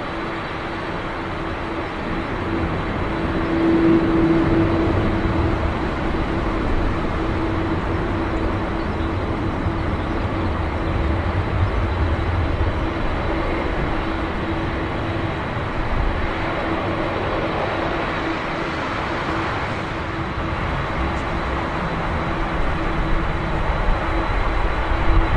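The four jet engines of a Boeing 747-400 running: a steady rush of engine noise with a constant low hum through it, a little louder from about three seconds in.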